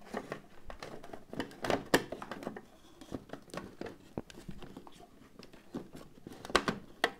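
Handling noise from fitting a UPS's plastic housing and its wiring together by hand: scattered clicks and knocks of plastic parts, a sharp one about two seconds in and a few more near the end.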